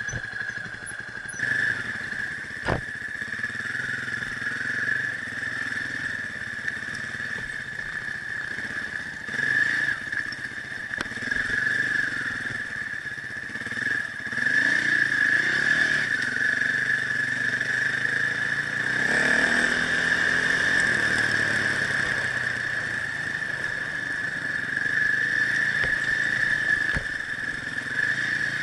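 Motorcycle engine running heard from a helmet-mounted camera, its revs rising and falling as the bike picks its way over rocky ground, with a steady high whine throughout. A single sharp knock sounds about three seconds in.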